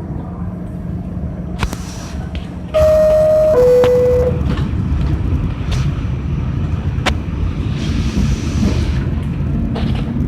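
Descending two-tone door chime of an R46 subway car, sounding once about three seconds in, over the steady low rumble of the car. A few sharp clicks and a brief hiss follow.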